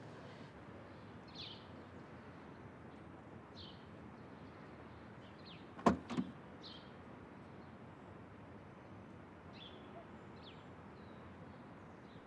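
Faint outdoor background with short, falling bird chirps every second or two. About six seconds in, a car door is shut, two quick thuds in a row.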